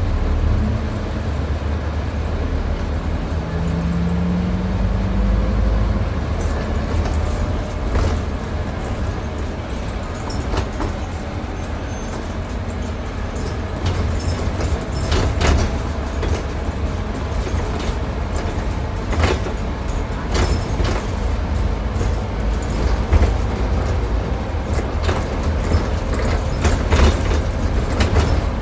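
Cabin noise inside a moving Scania N250UD double-decker bus: a steady low engine drone and road noise, with a rising tone about four seconds in. Sharp knocks and rattles from the bodywork come more often in the second half.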